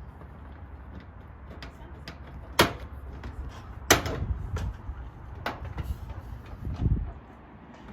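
Sharp knocks and clacks of a gazebo roof panel being forced into its frame channel. The two loudest come about two and a half and four seconds in, with a few lighter taps after them and a dull thump near the end.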